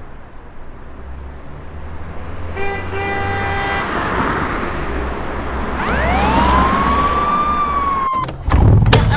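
Low vehicle rumble, with a car horn honking twice, a short toot then a longer one. Then a police siren wails up in pitch, holds and cuts off abruptly, followed near the end by a loud low thump.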